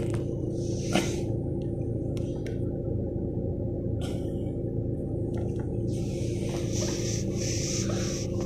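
Steady low hum of a car idling, heard from inside the cabin, with a single click about a second in and a hiss over the last two seconds as a hand comes up to the cabin camera.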